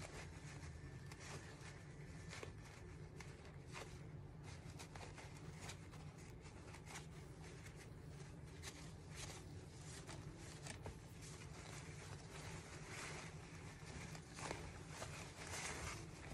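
Faint rustling and rubbing of a crumpled paper towel wiping paint off a ceramic robin figurine, with small scattered clicks from handling the figurine, over a low steady hum.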